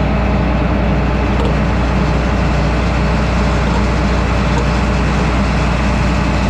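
Combine harvester running while shelling corn: loud, steady engine and threshing machinery noise with a constant deep hum.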